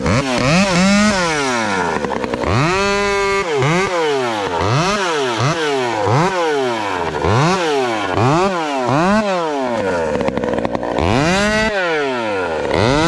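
Husqvarna two-stroke chainsaw revving up and down again and again, the throttle blipped about every three quarters of a second. A few pulls are held at full revs for up to a second, one of them near the start.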